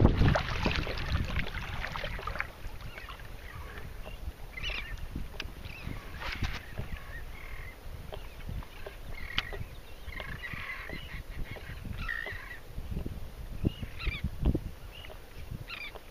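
Kayak paddle splashing for the first couple of seconds, then small chop lapping and slapping against the kayak's hull. Birds call now and then above the water.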